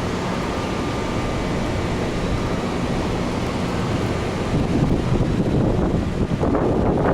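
Hurricane wind blowing steadily, then gusting harder about halfway through and buffeting the microphone.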